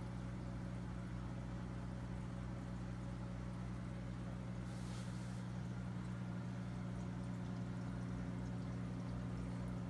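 Steady low hum of an aquarium pump running, with a brief soft hiss about five seconds in.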